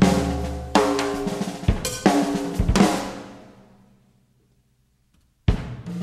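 Live jazz-fusion band playing a run of accented ensemble hits, with drums and cymbal crashes under sustained chords, four in about three seconds. The last chord rings out and fades to a second or so of complete silence before the band comes back in. Heard from a cassette recording of an FM broadcast, with no tape hiss in the gap.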